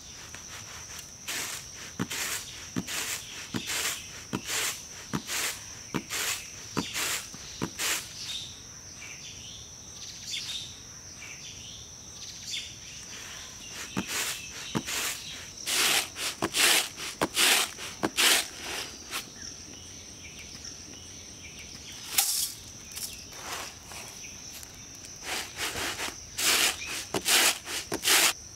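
Repeated swishes of a woven hand fan being waved over flattened rice, about one to two strokes a second in several runs, over a steady high drone of insects.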